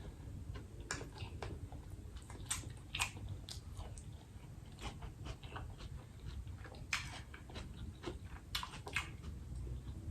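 Close-up mouth sounds of someone chewing a mouthful of jerk tofu nuggets and rice: wet smacks and small crunches at an uneven pace.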